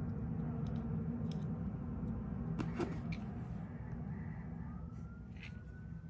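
A steady low hum with a few faint clicks of small plastic parts being handled, here a disassembled brake light switch. A faint thin tone rises slowly in the last second or so.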